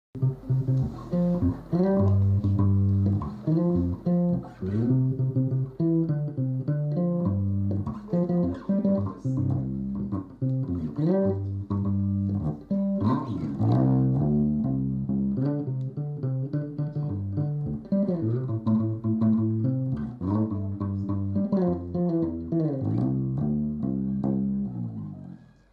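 Electric bass guitar played as a continuous run of plucked notes in a rhythmic groove, fading out near the end.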